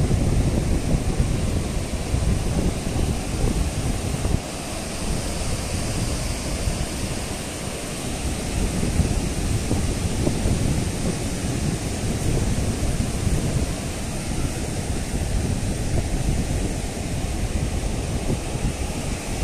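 Surf breaking and washing up a sandy beach, mixed with wind buffeting the microphone as an uneven low rumble.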